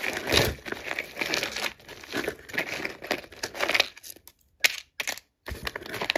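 A bag of jewelry being handled and rummaged through, a dense rustling that stops about four seconds in, followed by a few sharp clicks.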